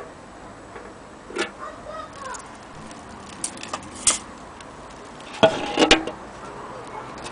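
A few sharp clicks and light knocks of handling, scattered at first, with a louder cluster of several clicks about five and a half to six seconds in.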